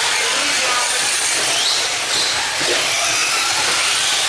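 Radio-controlled cars racing on a dirt track: a steady high hiss of motors and tyres on the dirt, with faint brief whines rising and falling as the cars accelerate.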